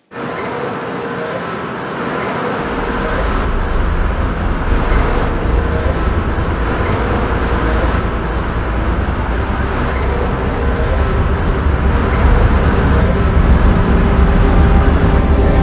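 A loud, steady rumbling noise like traffic, starting abruptly. A deep low rumble joins about two seconds in, and it swells slowly louder.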